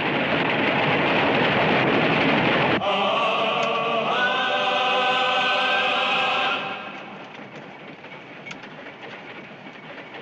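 A train: a loud hiss for about three seconds, then a whistle holding one steady chord for about four seconds before it stops, then the train running more quietly with faint clicks.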